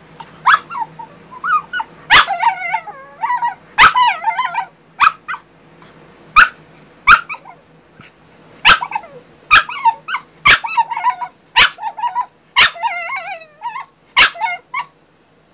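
French bulldog barking about a dozen times, most barks running on into wavering, sing-song whines: a crated dog protesting her confinement.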